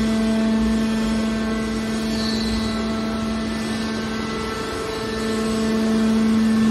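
Hydraulic power pack of a scrap metal baler running: a steady mechanical hum with one strong low pitch and fainter higher tones above it, growing a little louder in the last couple of seconds.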